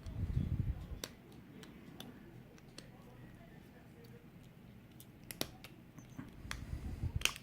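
Small metal clicks and handling noises of tools working at a lock's bendy retaining clip while trying to free the core, with a low bump about the first second and a cluster of sharp clicks near the end.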